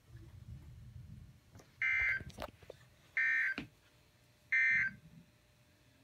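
Weather radio sounding the three short SAME end-of-message data bursts, identical electronic bursts a little over a second apart, marking the end of a National Weather Service flash flood warning broadcast.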